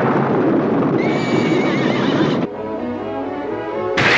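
Horses galloping with a noisy clatter of hooves, and a horse whinnying about a second in, over background music; near the end the hoof noise drops away and the music carries on alone before another rush of noise starts.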